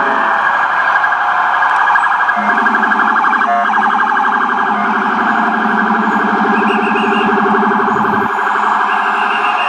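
Ambulance electronic siren sounding a rapid warble. About two and a half seconds in, a deeper pulsing tone in the same rhythm joins it: a low-frequency Rumbler siren, which cuts off abruptly near the end.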